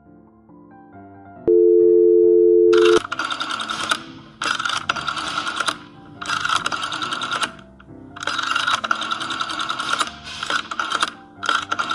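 A telephone dial tone, a steady two-note hum, sounds for about a second and a half, then cuts off as a rotary telephone dial is turned and let spin back digit after digit: about half a dozen separate runs of clicking and whirring with short gaps between. Soft piano music plays under it.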